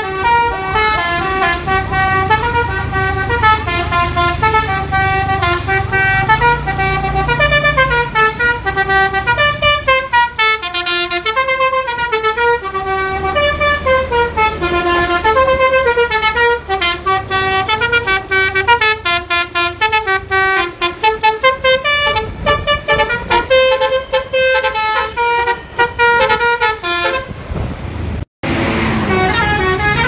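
Telolet basuri multi-tone bus horn playing a fast melody of short stepped notes, over the bus engine's low running. About two seconds before the end it cuts off abruptly and another bus horn's melody starts.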